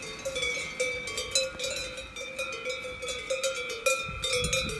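Several cowbells clanking irregularly and overlapping, each ringing at its own pitch.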